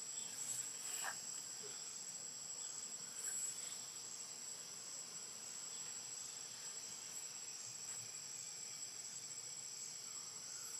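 Steady high-pitched insect chorus from the surrounding forest, a continuous shrill drone, with a brief faint chirp about a second in.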